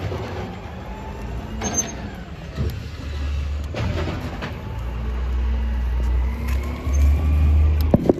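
Low rumble of wind and motion on the microphone of a bicycle riding along a sidewalk, with the clicks and rattles of the bike. A large truck's engine runs close by. The rumble jumps in level and is loudest near the end.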